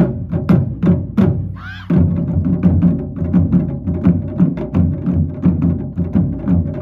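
Japanese taiko drum ensemble playing barrel drums with wooden sticks: sharp, spaced strokes at first, then, about two seconds in, the group breaks into fast, steady, heavy drumming in unison.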